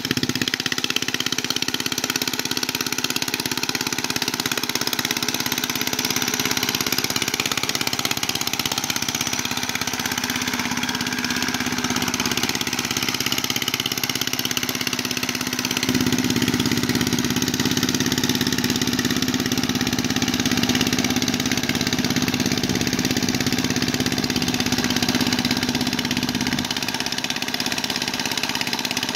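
Engine of a two-wheel hand tractor (mud boat tiller) running steadily as it hauls its cage wheels through a flooded rice paddy. Its low note grows stronger for about ten seconds past the middle, then eases back.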